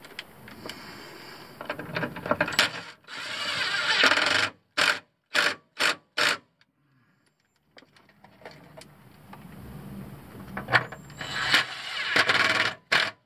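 Hand socket ratchet working a bolt in short back-and-forth strokes, each stroke a quick burst of clicks, with a brief pause partway through.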